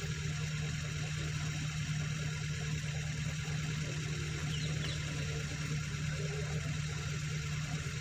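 Safari Gypsy jeep's engine idling steadily with a low, even hum.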